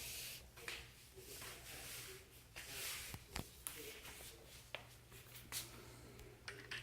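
Faint handling noise from a small child working a hex-key wrench in a furniture screw: light rustling with a few short clicks and taps of the metal key against the fitting.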